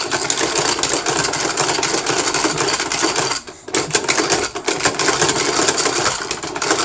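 Yugoslavian machine-gun belt loader being worked rapidly, pushing cartridges into a metal-link belt one after another in a fast, continuous metallic clatter, with a brief pause about three and a half seconds in.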